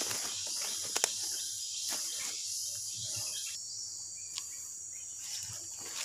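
Steady high-pitched chorus of rainforest insects, one part of which stops a little past halfway, with a few sharp clicks.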